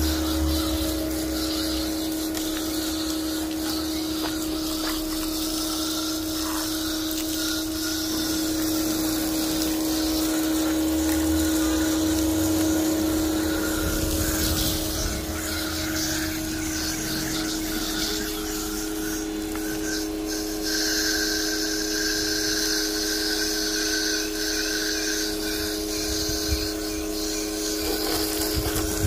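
Small electric pressure washer running steadily, its motor and pump humming while the water jet hisses against a car's windows and body panels. The spray hiss gets louder about two-thirds of the way through.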